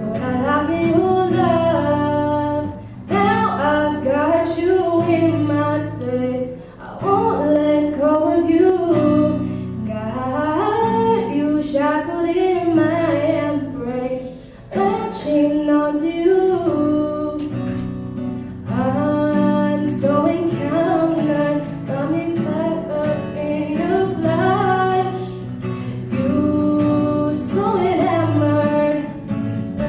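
Woman singing a pop ballad over guitar accompaniment.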